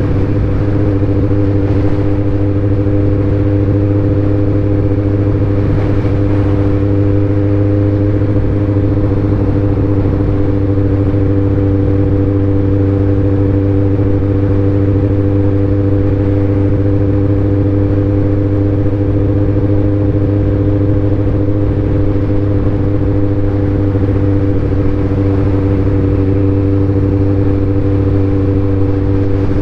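2019 Kawasaki ZX-14R's inline-four engine running at a steady cruise, its exhaust note holding one even pitch with no revving up or down.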